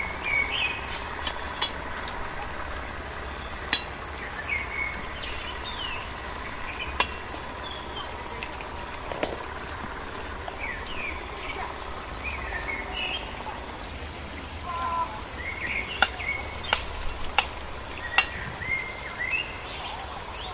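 Forest ambience: a steady high insect drone with short bird chirps scattered throughout. Now and then there is a sharp click or snap, several in quick succession near the end.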